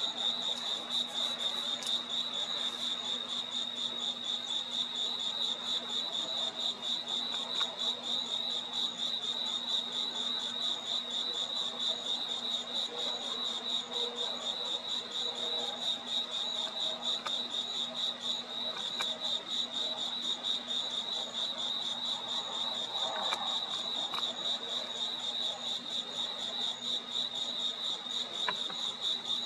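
A night chorus of crickets, a steady high trill pulsing fast without a break, over a faint steady low hum.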